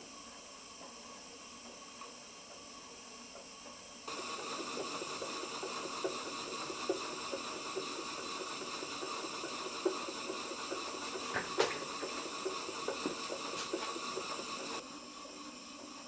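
Live-steam model engine and its gas-fired Castle boiler running: a steady hiss of steam and burners, with scattered small irregular crackles and ticks. It gets louder about four seconds in and drops back near the end.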